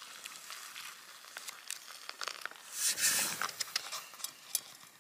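Water being poured from a pot into a freeze-dried meal's foil pouch, with the pouch crinkling as it is held open. A louder rush of pouring comes about three seconds in.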